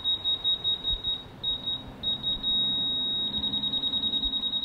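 Laser level receiver on a grade rod beeping in a single high tone: choppy beeps, a steady tone for about a second after two seconds in, then quick beeps about nine a second. The receiver is signalling where the rotating laser beam falls as it is slid along the rod to find the grade mark.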